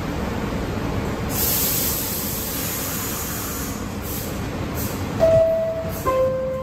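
Interior of an R62A subway car: the car's steady rumble, a hiss of air lasting a couple of seconds from about a second in, then the door chime's two descending tones near the end, the signal that the doors are closing.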